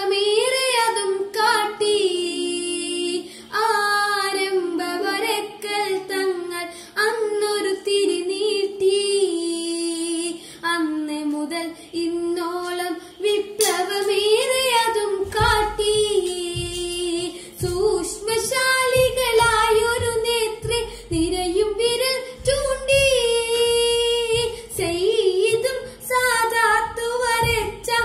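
A boy singing a Malayalam song solo, his high voice carrying a continuous melody. From about halfway through, low thuds sound under the voice.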